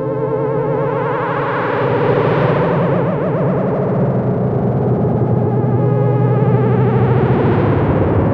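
u-he Diva virtual-analog software synthesizer playing a thick, sustained preset over a steady low bass note, its filter slowly opening and closing so the sound brightens about two seconds in, darkens, then brightens again near the end.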